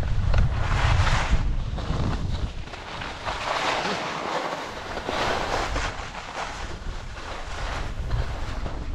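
Wind rumbling on the microphone while skiing downhill, heaviest in the first couple of seconds, mixed with the hiss and scrape of skis sliding and turning on packed snow, which is strongest in the middle.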